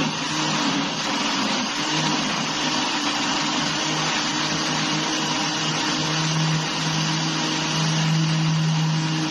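A small electric motor running with a steady hum; its low tone grows stronger in the second half.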